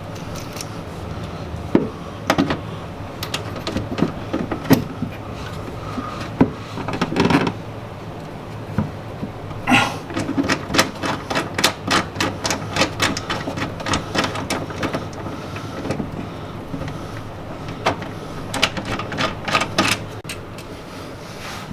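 Hand tools clicking and knocking against metal car parts at irregular intervals, with runs of quick clicks, over a steady low hum.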